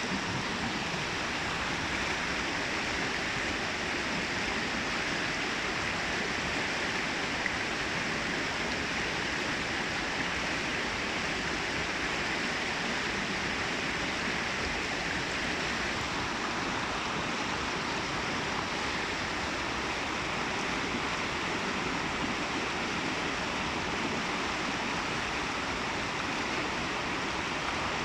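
Water cascading down a babbling brook: a steady rushing.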